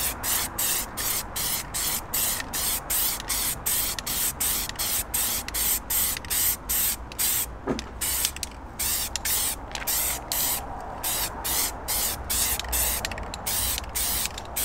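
Aerosol can of grey car primer spraying onto an alloy wheel in quick short bursts, about three a second, laying down the first coat.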